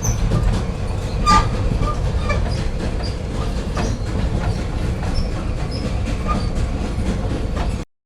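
Train rolling on rails: a steady low rumble with scattered wheel clicks and brief high wheel squeals, over a faint steady hum. It cuts off suddenly near the end.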